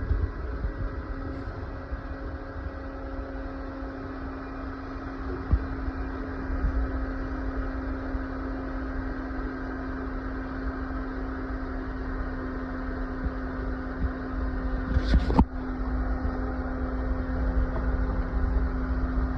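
Vehicle engine running steadily with a constant low hum, and a single sharp knock about fifteen seconds in.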